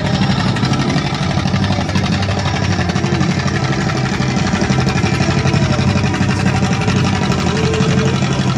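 Antique John Deere two-cylinder tractor engine running steadily under heavy load as it drags a weight-transfer pulling sled.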